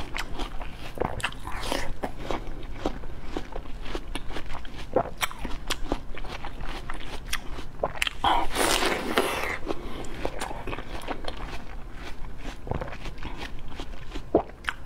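Close-miked biting and chewing of juicy mini watermelon flesh: many short wet crunches and clicks, with a louder, longer bite about eight seconds in.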